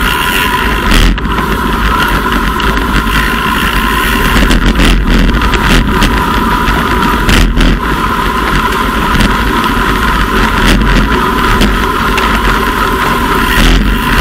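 Loud, steady wind and road noise on a bicycle-mounted camera's microphone while riding at about 50 km/h, with a steady whine running through it.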